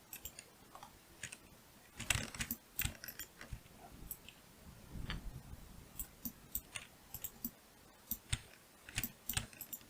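Irregular clicks of a computer mouse and keyboard being worked, some closer together in short runs.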